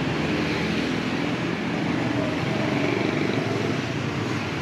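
Steady street traffic noise: motor vehicles running and passing.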